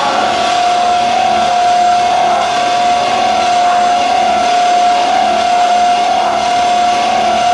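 Loud, harsh noise soundscape with one steady high tone held over it.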